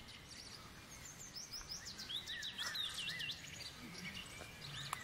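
Small birds chirping, with a quick run of high, looping chirps about two to three seconds in, over a faint background hush.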